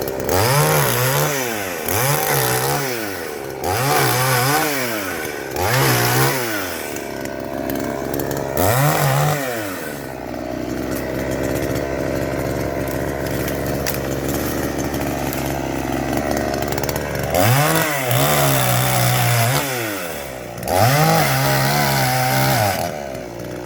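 Two-stroke chainsaw revving up and down again and again, about every two seconds, settling to a steady lower running about ten seconds in, then revving several more times near the end.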